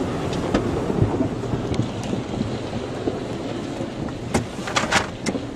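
Automatic car wash brushes and water spray working over the car, heard from inside the cabin as a dense, steady wash of noise. A few sharp knocks come near the end.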